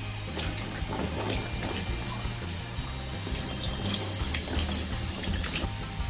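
Running water splashing, as from a tap during rinsing, starting just after the beginning and stopping about half a second before the end, over background music.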